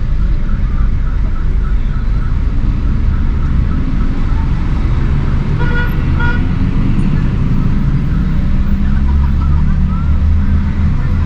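City street traffic: a steady low rumble of vehicle engines, with a short car-horn toot about six seconds in.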